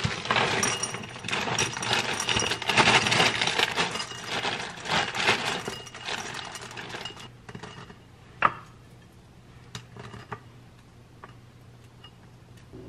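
Dry grain-free cereal poured from its bag into a ceramic bowl: a dense rattle of pieces clinking against the bowl for about seven seconds. Then one sharp knock about eight seconds in, followed by a few light taps.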